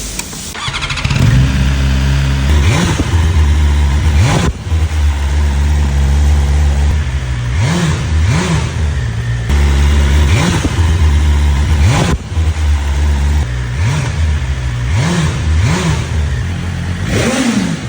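BMW S 1000RR superbike's 999 cc inline-four engine idling in an echoing basement, blipped about nine times, the revs rising and falling briefly each time. The blips are kept short because the bike is new.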